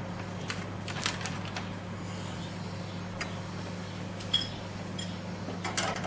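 Light clicks and knocks of a photoelectric mark sensor being handled and fitted onto its metal bracket, the loudest about four seconds in, over a steady low hum.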